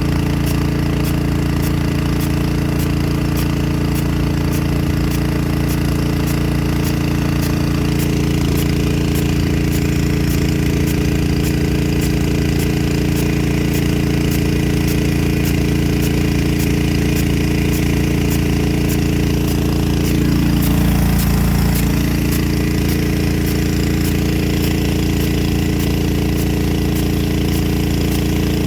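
Nelson P100 big gun sprinkler running with its water jet spraying, its drive arm clacking in a regular beat of about two strokes a second over a steady engine drone, with a brief swell of spray noise about twenty seconds in.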